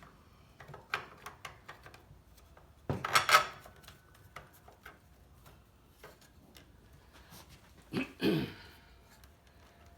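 Parts of a circular saw's housing being handled and fitted together during reassembly: scattered light clicks, with a louder clatter about three seconds in and another knock and scrape near eight seconds in.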